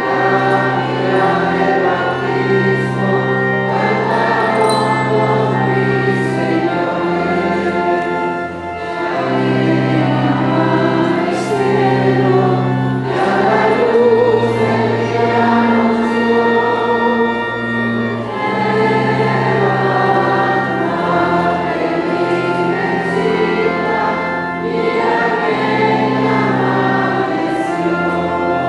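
Choir singing a hymn with organ accompaniment; long held low organ notes sound under the voices.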